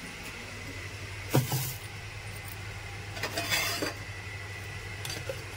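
Handling knocks and clinks around a plastic bucket of soaking chickpeas: one sharp knock about a second and a half in, then a short clatter a couple of seconds later, over a steady low hum.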